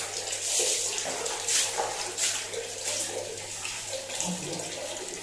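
Bath water running and splashing during a soapy hand-scrub bath, with a few louder splashes in the first two seconds.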